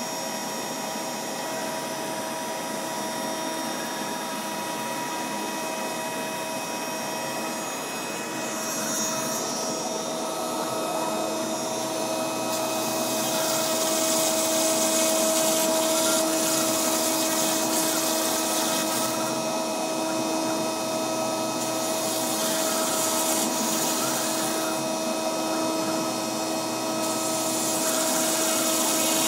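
CNC router spindle running with a steady whine, its stepper motors driving the axes, as the bit cuts into EPS foam. From about a third of the way in, a high hiss of the bit cutting the foam swells and fades in stretches.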